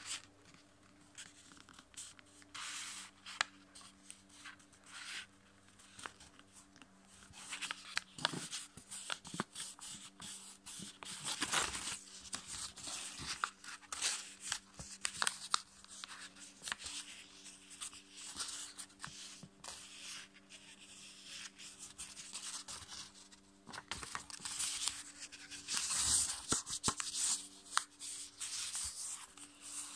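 A sheet of A5 copy paper being folded and creased by hand: irregular paper rustling and fingers rubbing along the folds, in uneven spells.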